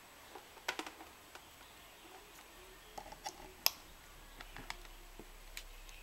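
Light plastic clicks and taps from handling a USB cable and plugging it into a plastic USB charger. The clicks are scattered and irregular, with the sharpest one about three and a half seconds in.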